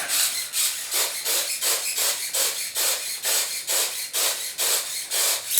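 Gas-powered airgun firing repeatedly in quick succession, each shot a short hissing puff of gas, about three to four a second, stopping abruptly at the end.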